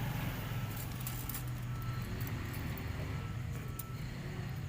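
A steady low hum with scattered light clicks and taps of small metal engine parts being handled, as a gasket is fitted between the cylinder block and crankcase.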